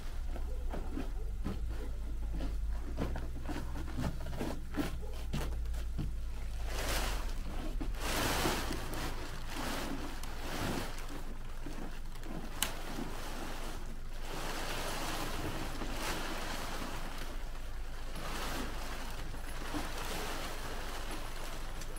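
Kazmi X9 tent fabric rustling and swishing in repeated surges as the tent is hoisted on its crossed poles, with a sharp click about twelve seconds in. A low rumble runs under the first few seconds.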